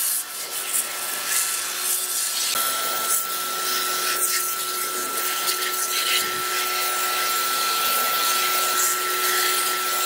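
A motor-driven cleaning machine running with a steady high hiss, with a steady whine that comes in about two and a half seconds in.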